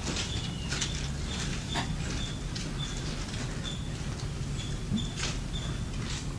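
Room tone between sentences: a steady low hum under a faint short high-pitched chirp that repeats about twice a second, with a few soft clicks.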